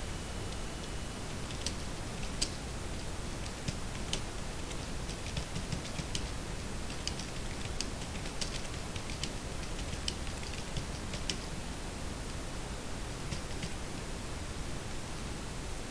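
Computer keyboard being typed on: irregular keystroke clicks, some in quick runs, over a steady background hiss.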